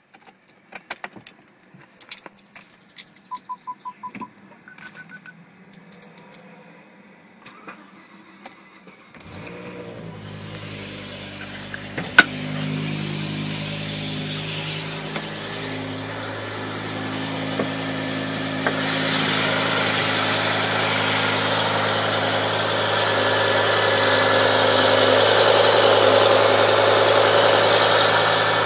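Clicks and short runs of electronic beeping, then about nine seconds in the BMW E60 M5's 5.0-litre V10 starts from cold and settles into a steady idle, getting louder about nineteen seconds in.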